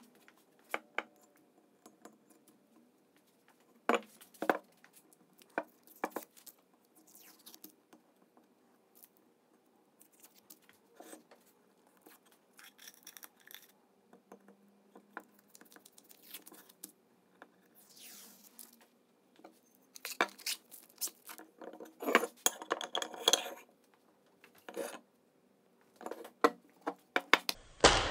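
Masking tape being peeled and crumpled off freshly painted cast-iron vise parts, with rustling and tearing of the tape and scattered sharp knocks and clinks as the metal parts are handled and set down on a wooden bench.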